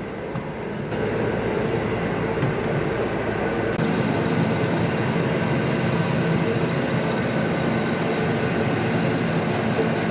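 Steady machinery running noise, stepping louder about a second in and changing again near four seconds.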